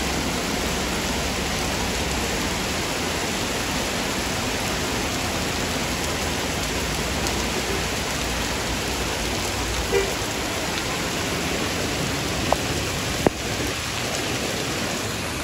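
Heavy rain pouring down steadily, with a few short sharp taps between about ten and thirteen seconds in.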